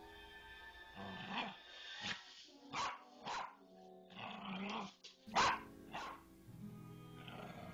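An elderly Bichon Frise barks in a string of about seven or eight short, sharp barks, with one longer, rougher bark about four seconds in. Soft background music plays underneath.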